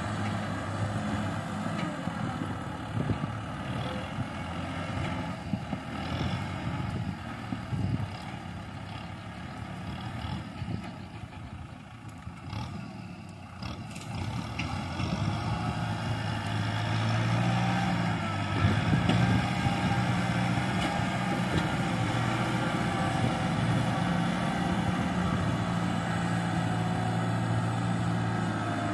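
Kubota M6040 tractor's diesel engine working as it pushes soil and brush with its front blade while dragging a disc harrow. The engine is quieter in the middle, then louder with a steady pitch from about halfway on.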